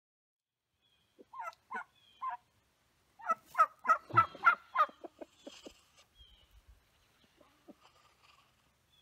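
Domestic turkey tom gobbling. A few short calls come first, then about three seconds in a loud, fast, rattling gobble that trails off.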